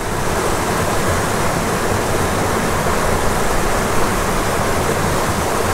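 Small rocky mountain creek rushing over stones, a steady, loud rush of water with no break.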